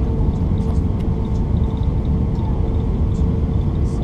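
Steady cabin noise inside an Airbus A320-family airliner descending on final approach: a low roar of engines and airflow with a steady mid-pitched hum running through it.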